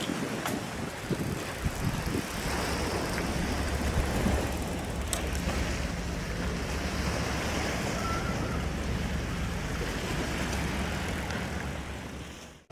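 Steady low engine drone under wind noise on the microphone. It fades out near the end.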